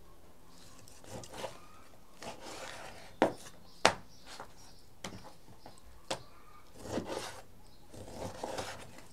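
Knife working through raw meat on a cutting board: slicing and scraping strokes, with two sharp knocks of the blade on the board, one a little over three seconds in and one just under four seconds in.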